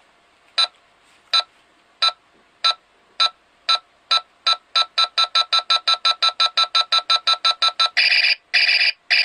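Buzz Lightyear action figure's electronic wrist-laser sound: a countdown of timer beeps that speed up steadily from about one a second to a rapid string, then the laser firing sound, a harsh electronic blast in three pulses starting about eight seconds in, the last one longer.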